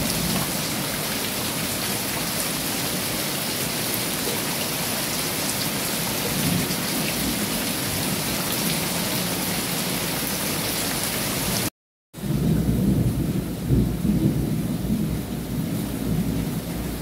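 Heavy rain pouring onto a fish pond's water and the wet paving around it, a steady hiss. After a brief cut about twelve seconds in, the rain is lighter and a low, uneven rumble of thunder swells and fades.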